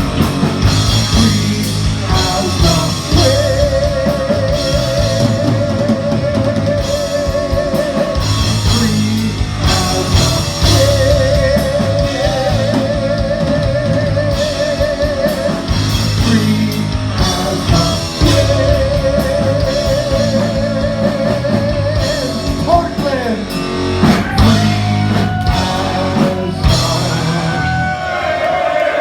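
A rock band playing loudly, with a drum kit, distorted electric guitar and singing. Long wavering held notes come in three phrases of about five seconds each.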